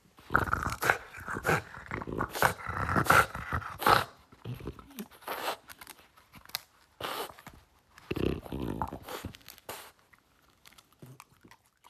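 French bulldog gnawing and chewing a wooden stick: a dense run of crunching, cracking bites that grows sparser and quieter near the end.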